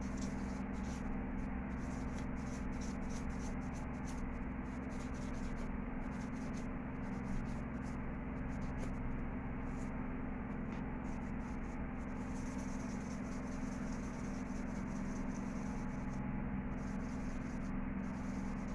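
Nail buffer rubbed back and forth over a toenail in quick, scratchy strokes, coming in runs with short pauses, over a steady low hum.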